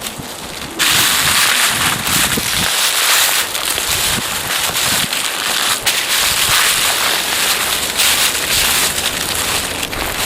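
Wind buffeting the camera's microphone: a loud, crackly hiss that starts abruptly about a second in and keeps going.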